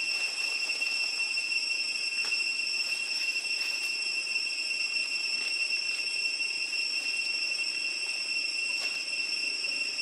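Steady insect chorus droning, a high unbroken whine with fainter overtones above it. A few faint clicks sound over it.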